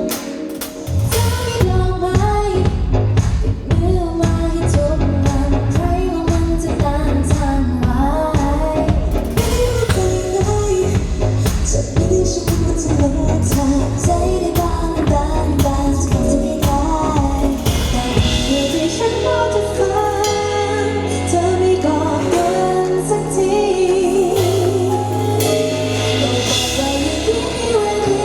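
Amplified pop song with female vocals singing over drums and bass. About two-thirds of the way through, the driving drumbeat drops away, leaving long held bass notes under the singing.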